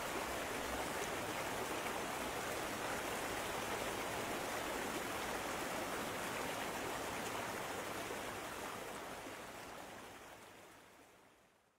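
River water flowing steadily over rocks, with no tones or rhythm in it, fading out over the last few seconds.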